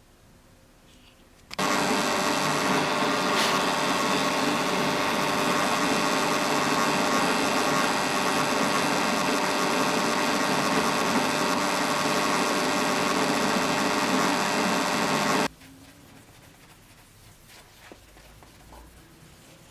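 An electric motor, like a power tool's, running steadily at one speed for about fourteen seconds. It switches on abruptly about a second and a half in and cuts off suddenly near the end.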